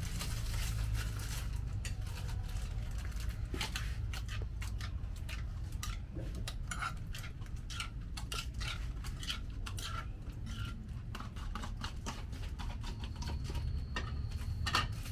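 Irregular light clinks and taps of a metal spoon against a small cup and plastic containers while food is dished up.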